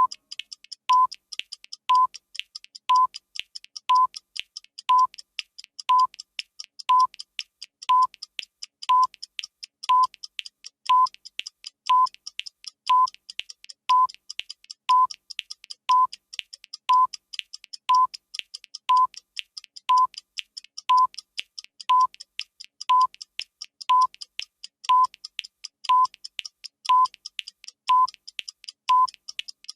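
Countdown timer sound effect: a short electronic beep once every second over a clock's ticking.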